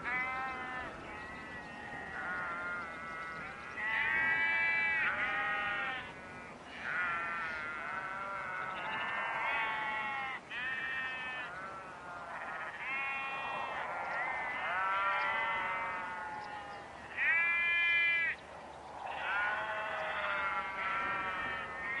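A flock of sheep with lambs bleating over and over, quavering calls that often overlap, with the loudest bleats about four seconds in and again about seventeen seconds in.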